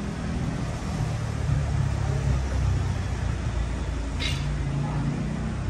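Street traffic: a motor vehicle's engine running close by as a low rumble that grows louder through the middle, with a short hiss about four seconds in.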